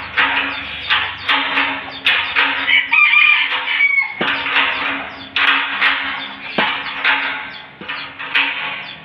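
Chickens clucking in short repeated calls, with a rooster crowing once about three seconds in.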